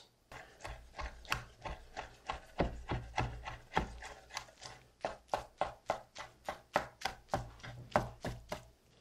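Chef's knife chopping cooked fish meat on a wooden cutting board, mincing it fine. A steady run of quick strikes, about four a second, stops shortly before the end.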